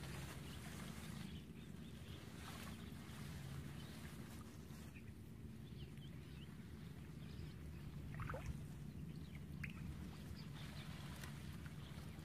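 Soft sloshing of feet wading through shallow, muddy marsh water over a low steady rumble, with a few faint bird chirps about eight and ten seconds in.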